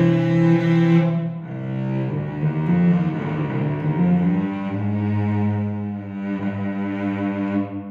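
Early 20th-century Mirecourt 3/4 cello played with the bow: slow, sustained notes that change every second or two, with a long low note held through the second half.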